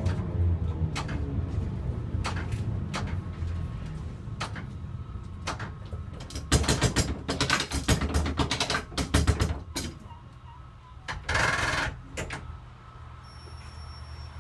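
Gotha T57 tramcar running on the rails, its motor whine falling in pitch near the start. The wheels click and knock over rail joints, with a fast run of clatter in the middle as the car crosses points, a short hiss about eleven seconds in, and then quieter rolling.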